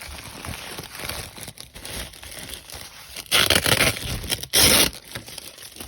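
Bubble wrap being crinkled and pulled off a packed item, with two louder tearing bursts about three and a half and four and a half seconds in.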